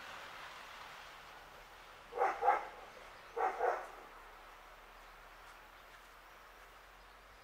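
A dog barking: two quick double barks about a second apart.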